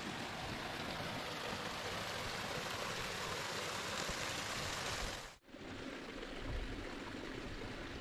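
Small mountain stream running and splashing over rocks in a steady rush of water. The sound drops out for an instant about five seconds in, then resumes a little duller.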